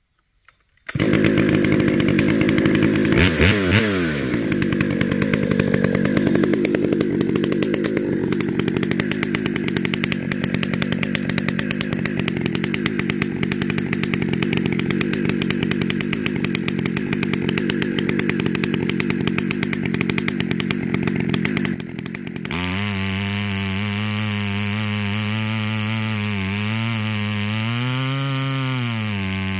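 Holzfforma G395XP two-stroke chainsaw with a 42-inch bar and ripping chain, mounted in an Alaskan chainsaw mill, running at full throttle as it rips lengthwise through a log to cut a slab. It starts about a second in. About 22 seconds in, its tone turns clearer and its pitch wavers and dips.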